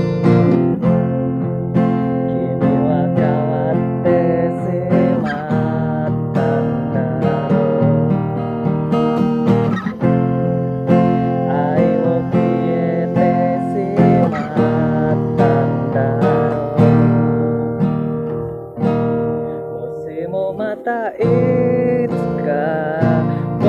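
Acoustic guitar strummed and picked in a song, with a sung melody coming in near the end.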